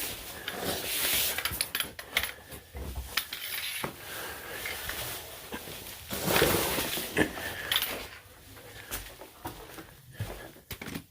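A hiker squeezing through a narrow rock passage: backpack and gear scraping and rustling against the rock, with scattered clinks and knocks, loudest about six seconds in.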